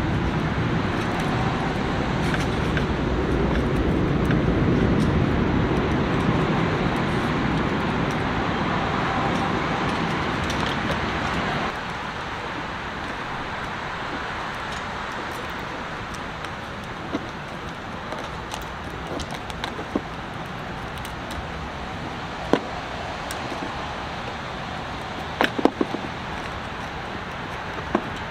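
Steady ambient rumble and hiss that drops in level abruptly about twelve seconds in, with a handful of sharp clicks and knocks in the second half.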